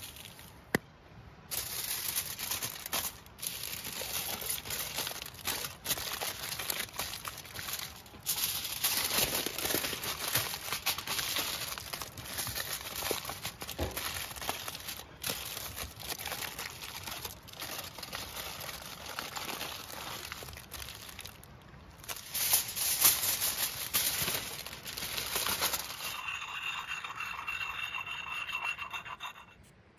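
Aluminium foil crinkling and rustling as it is folded and pressed into a packet, with one sharp click about a second in. Near the end the sound changes to a sharpening puck scraping along a steel axe blade.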